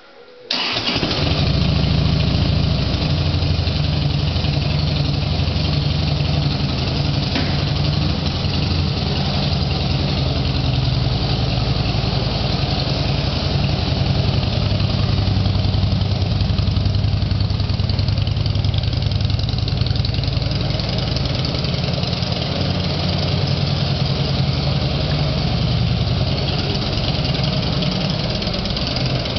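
Harley-Davidson Fat Boy's V-twin engine idling steadily, coming in suddenly about half a second in.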